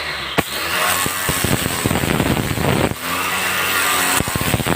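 Predator 1,500 W electric pressure washer spraying, its water jet spattering hard against a wall to blast off black grime. The spray eases briefly about three seconds in, leaving a low hum, then comes back on.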